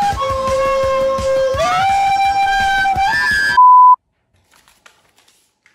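Background music with a held melody line over a beat, cutting off about three and a half seconds in. A short, loud, steady beep follows, then near silence with a few faint clicks.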